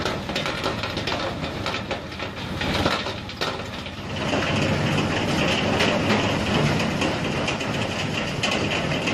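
Heavy machinery running with dense rattling and clattering. About four seconds in it settles into a steadier, hissing grind.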